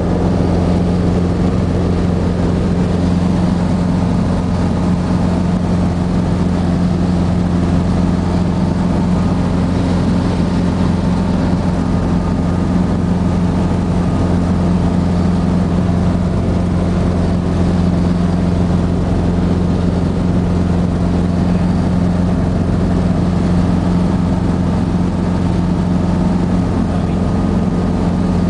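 Steady drone of a Robinson R22 helicopter in flight, engine and rotor heard from inside the cockpit, unchanging throughout.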